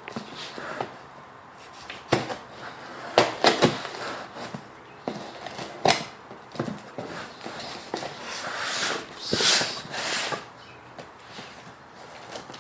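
Knife cutting the packing tape on a cardboard shipping box: irregular taps, clicks and scrapes, with a longer scratchy stretch of cutting between about eight and ten seconds in.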